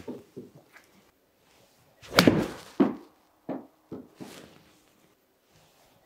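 A 50-degree wedge strikes a golf ball off a hitting mat with a sharp crack about two seconds in, and the ball hits the simulator's impact screen about half a second later. A few fainter knocks follow.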